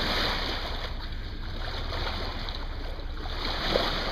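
Water rushing along the hull of a moving boat over a steady low rumble, with wind on the microphone. A single short tap sounds near the end.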